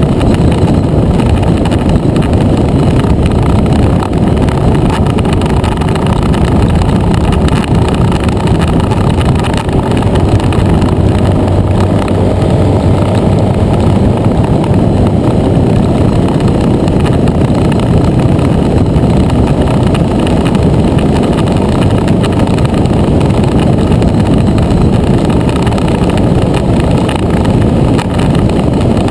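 A motor scooter riding at road speed: steady, heavy wind rush over the mounted camera's microphone, with the scooter's engine running underneath.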